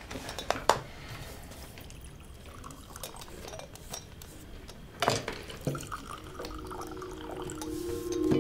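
Tableware sounds: a few sharp clinks of china and cutlery as a knife spreads butter on a slice of bread over a cup and saucer. About six seconds in, held music tones fade in and swell.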